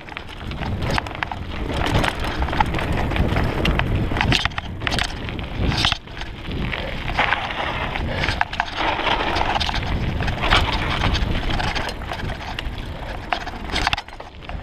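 Mountain bike descending a dirt singletrack: tyres running over the rough trail with constant noise and many sharp knocks and rattles from the bike as it hits bumps.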